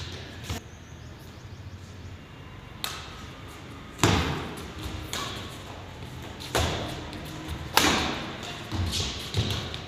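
Badminton rally: rackets smacking the shuttlecock about five times, a second or two apart, each hit sharp and followed by a short echo, with lighter knocks of footfalls on the court near the end.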